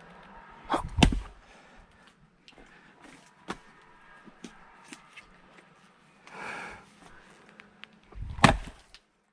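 Axe strikes splitting firewood: two heavy blows, about a second in and near the end, with a few lighter knocks of wood between them.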